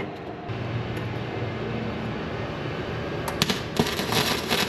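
A low steady hum starts about half a second in; about three seconds in a MIG welder's arc strikes with a few sharp pops and settles into a steady crackle as it welds steel.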